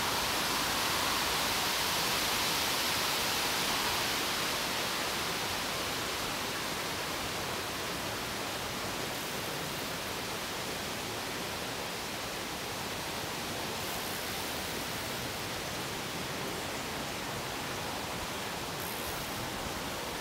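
Steady, even rushing outdoor noise with no distinct events, a little louder in the first few seconds.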